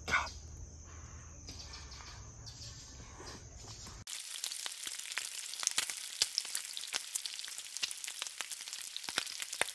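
Bacon sizzling on a hot flat-top griddle, with a dense crackle and many sharp pops. It starts abruptly about four seconds in, after a few seconds of quiet low background.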